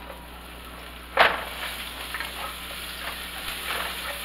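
Sliced red onions hitting hot bacon grease in a nonstick skillet: a sudden loud burst about a second in, settling into steady sizzling and crackling frying.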